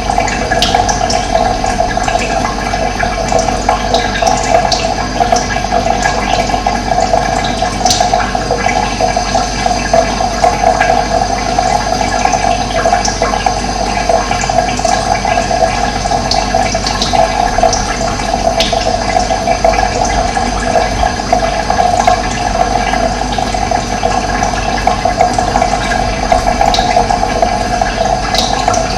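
Running water flowing steadily, with a few brief high chirps now and then.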